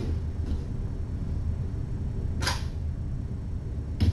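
Steady low room hum with a single sharp click about two and a half seconds in and a dull thump near the end, small knocks from kittens playing in the room.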